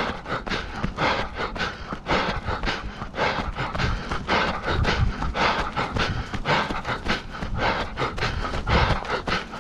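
Running footfalls, about three steps a second, with hard panting breath during a fast canicross race run alongside a dog.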